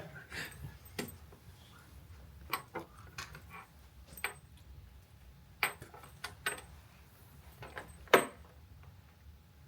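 Scattered clicks and light metal clinks of hand tools and coax connector parts being handled on a work table, with one sharper click about eight seconds in.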